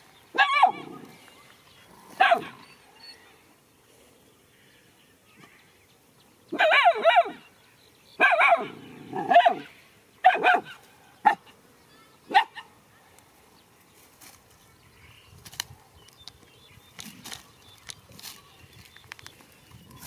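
Dogs barking in short, pitched barks. One bark comes about half a second in and another about two seconds later, then a quick run of barks between about six and twelve seconds in, after which they stop.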